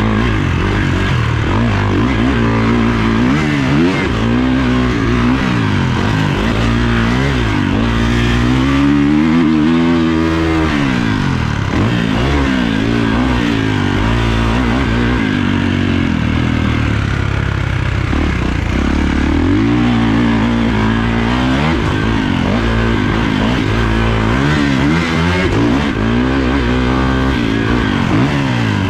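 Kawasaki motocross bike's engine revving hard up and down through the gears, its pitch climbing and dropping every few seconds, over a steady rushing hiss.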